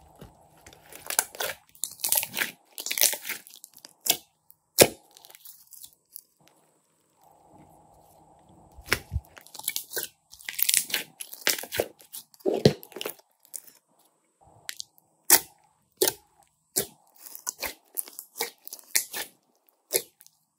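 Hands squeezing, stretching and folding glossy slime dotted with small foam beads: irregular runs of wet crackling and popping, with a few single sharp pops and short quiet pauses.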